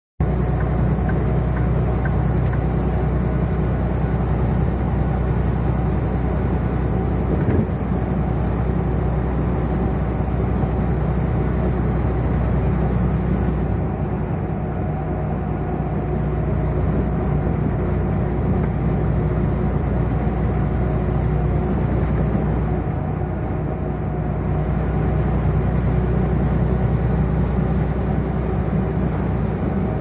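Cab interior of a semi truck at highway speed: steady drone of the diesel engine with tire and road noise, and a single brief knock about seven and a half seconds in.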